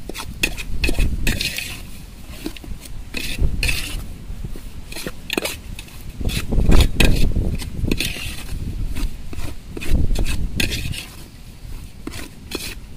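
Perforated steel ladle scraping and clinking against a metal pot in quick, irregular strokes as semolina is stirred and roasted in ghee. It is kept moving constantly so the semolina doesn't stick and scorch at the bottom.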